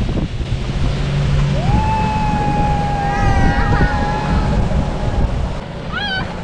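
A boat running on open water: a steady low rumble of engine and water noise, with wind buffeting the microphone. Over it, a long held high tone lasts about three seconds, and a short wavering tone comes near the end.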